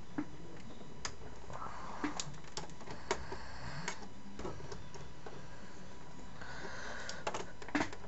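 Scattered light clicks and taps of power-supply cables and a plastic connector being handled inside a metal computer case, over a steady hiss.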